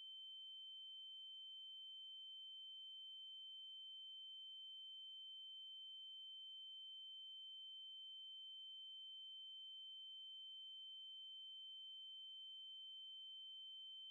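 Faint, steady high-pitched pure tone held at one pitch without change, an electronic sine tone of the kind used as eerie sound design.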